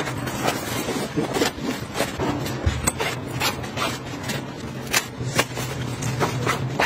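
Hands rubbing, folding and pressing a nylon packing cube: fabric rustling and scraping with irregular sharp taps and crinkles, a few each second.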